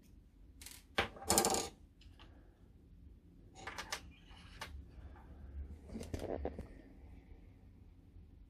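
Clicks and a short rattle of small hard parts as a 1/14-scale model truck's fifth-wheel coupling mechanism is taken apart by hand. The loudest rattle comes about a second in, with a few more scattered clicks later.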